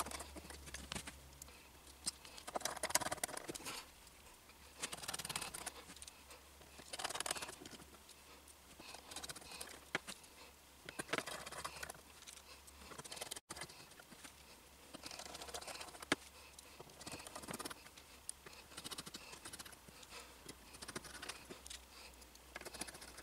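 Small screwdriver turning the screws that clamp an FEP film into a resin printer's vat frame: short scratchy bursts with small clicks, every second or two.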